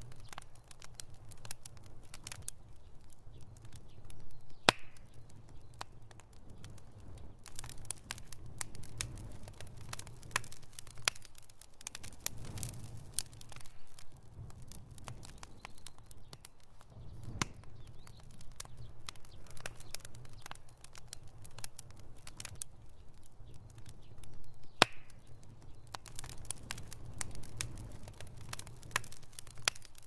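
Wood fire burning: dense, irregular crackling with sharp snaps and pops over a low steady rumble, with two louder snaps about five and about twenty-five seconds in.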